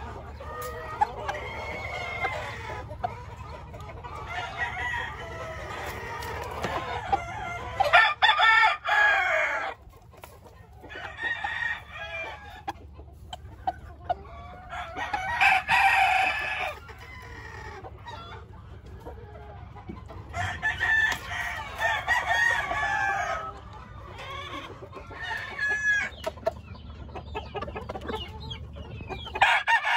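Gamecock roosters crowing several times, each crow lasting about two seconds, with quieter calls between, over a steady low hum.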